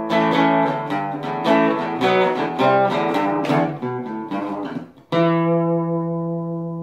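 Guitar music: a run of plucked notes, then one chord struck about five seconds in that rings on.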